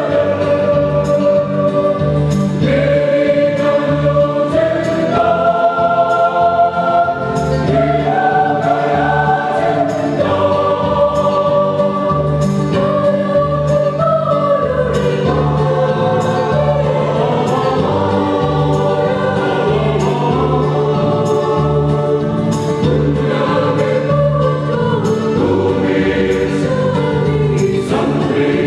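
Large mixed church choir singing a Christmas carol, many voices moving together in held chords.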